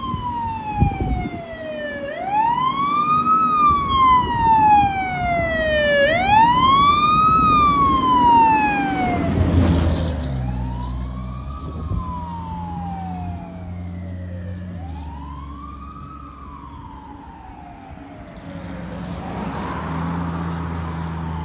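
Fire engine's wail siren, rising and falling in slow cycles of about four seconds over the rumble of its engine. It grows loudest as the truck approaches, drops slightly in pitch as it passes about ten seconds in, then fades as it drives away.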